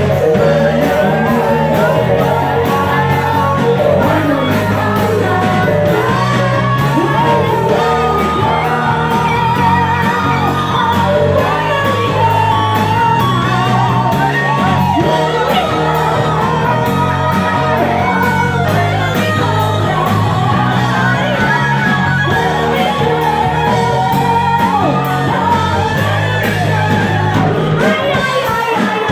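Live band playing loud music with electric guitar, a steady bass line and singing, with shouts from the crowd.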